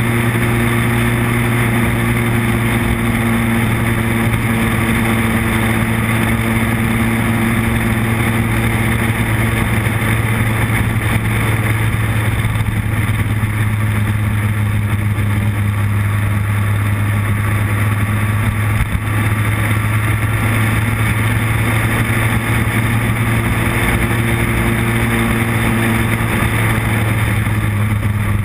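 Motorcycle engine running steadily at cruising speed, a constant hum under heavy rushing wind noise on the onboard camera.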